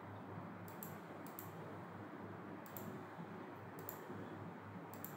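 Computer mouse button clicking about five times, each click a quick press-and-release pair, faint over a steady low hum of microphone noise.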